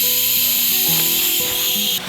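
Background music: a melody of held notes over a steady high hiss.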